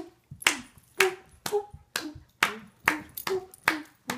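Hands clapping in a steady rhythm, about two claps a second.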